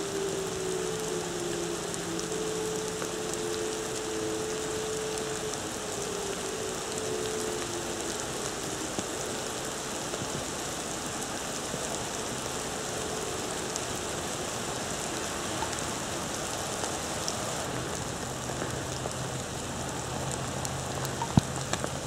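Several distant Whelen outdoor warning sirens winding down together, their overlapping tones sliding slowly lower and fading out within the first half, over a steady hiss of rain.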